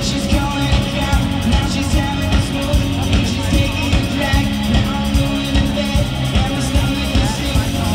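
Rock band playing live: drum kit, electric guitar, bass and keyboards driving a steady beat, recorded from among the audience in a loud hall.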